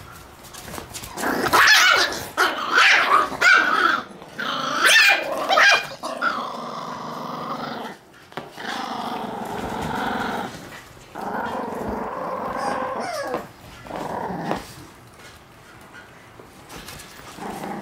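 Shiba Inu puppies play-fighting, growling and yapping at each other: a run of loud, sharp barks for the first several seconds, then longer drawn-out growls, tailing off near the end.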